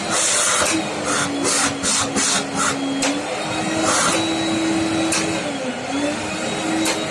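National vacuum cleaner running after reassembly and working properly: a steady motor whine that shifts up and down in pitch several times, with bursts of rushing air in the first few seconds.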